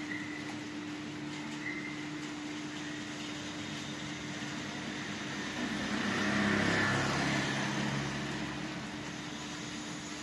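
A motor scooter passes along the wet road about six seconds in: its engine and tyre hiss swell and then fade over roughly three seconds, over a steady hiss of light rain. A constant low hum runs underneath.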